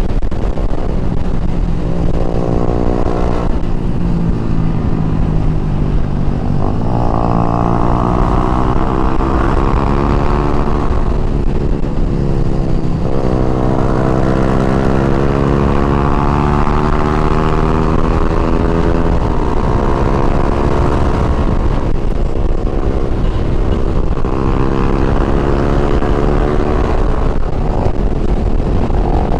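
Motorcycle engine under way, its note climbing and then dropping several times as the rider works the throttle and shifts gears.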